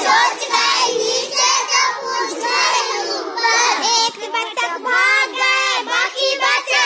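Group of young children singing a Hindi action rhyme together in unison, phrase by phrase, with short breaks between lines.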